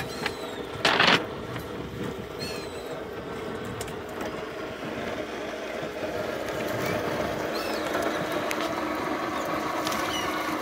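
Boat engine idling steadily, growing slightly louder, with a short burst of noise about a second in and a few faint high chirps.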